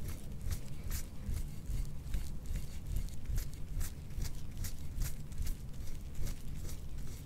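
Steel soft-tissue scraping tool stroked quickly over an oiled back, making short scratchy rasps about three times a second, with a low rumble beneath.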